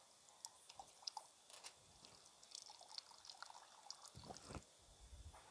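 Faint dripping and trickling of coconut milk through a plastic strainer into a pot as grated coconut is squeezed by hand, with small irregular drips and splashes. Two soft low thumps come a little after four seconds in.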